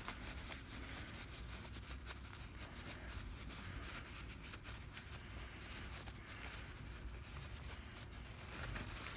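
Faint scratching and rubbing with scattered light clicks: small mortise-lock parts being handled and cleaned of old grime.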